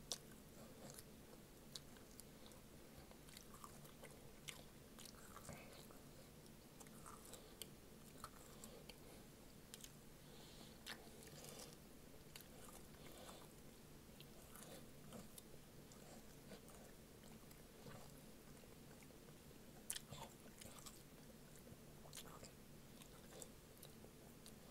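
Faint mouth sounds of a man biting and chewing meat off a fried rib bone: scattered wet smacks and sharp little clicks, a louder one right at the start and another about 20 seconds in, over a faint steady hum.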